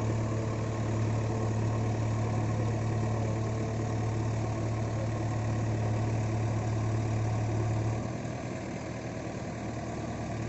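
JCB 3DX backhoe loader's diesel engine running at a steady speed, then dropping to a lower, quieter note about eight seconds in.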